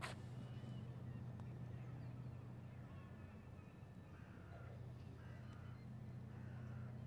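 Quiet outdoor ambience: a steady low hum with faint bird calls from about two and a half seconds in, and a sharp click at the very start.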